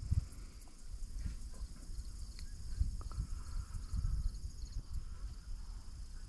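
Faint open-air marsh ambience: uneven low rumble of wind on the camera microphone under a steady, high insect trill.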